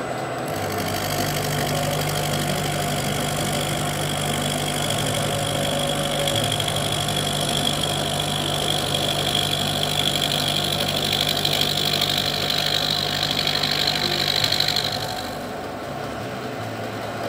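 Milling machine end mill side-cutting a phosphor bronze part: a steady motor hum under a high cutting whine. The whine stops about fifteen seconds in, leaving the machine running more quietly.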